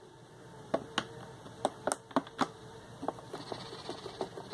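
Plastic clicking of a Wii guitar game controller's buttons and strum bar: scattered sharp clicks, then a quicker run of lighter clicks from about three seconds in, over a faint steady hum in the first half.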